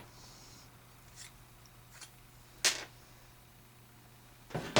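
Light handling of metal hand tools and a shotgun hull: a few faint clicks, a sharper click about two and a half seconds in, and a heavier knock near the end, over a steady low hum.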